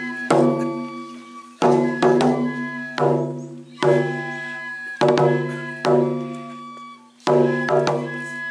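Taiko barrel drum of the oni-mai demon dance struck in an uneven pattern of single and paired beats, about eight in all, each stroke ringing on before it fades.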